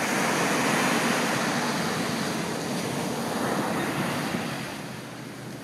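Ocean surf: waves breaking and washing up the shore in a broad, steady rush, loudest for the first few seconds and easing off near the end.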